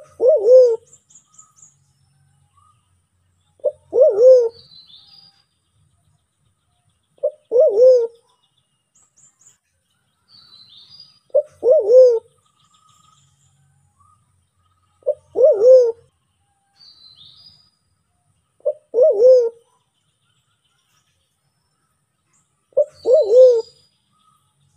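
White-faced cuckoo-dove (Sulawesi black pigeon, Turacoena manadensis) calling: a short note followed at once by a longer, slightly arched low coo. It repeats seven times, about every three and a half to four seconds. Faint high chirps of small birds come between the calls.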